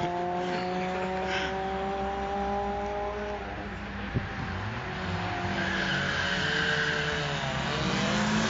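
Street-racing cars accelerating hard: one engine holds a high, slightly rising note for about three seconds and then fades away, and another car's engine comes up again near the end.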